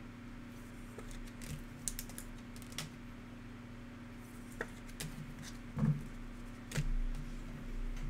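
Light, scattered plastic clicks and scrapes as a trading card is slid into a rigid plastic toploader, with two duller knocks near the end.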